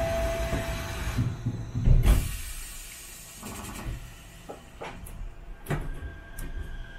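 Chiba Urban Monorail car at a station before departure. A steady chime-like tone sounds in the first second, and the sliding doors shut with a thud about two seconds in. A few mechanical clicks follow, and a faint steady whine starts near the end.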